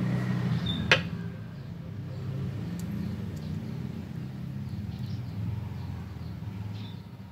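Steady low rumble in the background, easing off a little after the first second or so, with one sharp click about a second in.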